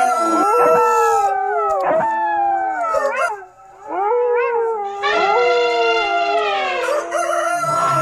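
Several canines howling at once: long overlapping howls that slide down in pitch, breaking off briefly about three and a half seconds in before a fresh long howl starts about five seconds in.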